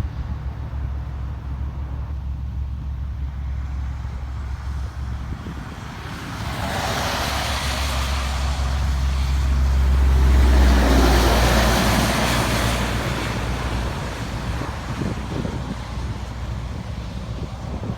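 Steady low rumble of road traffic. A vehicle passes close by, its rushing noise swelling from about six seconds in, peaking around ten seconds and fading a few seconds later.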